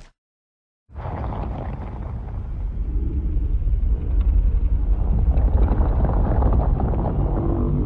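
A Legendary Godzilla film sound effect: a deep, low rumbling creature sound that starts about a second in after a brief silence and grows slightly louder.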